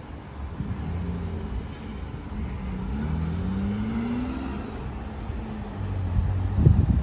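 A road vehicle's motor running and speeding up, its pitch rising steadily for about a second and a half a few seconds in. A few low thumps near the end.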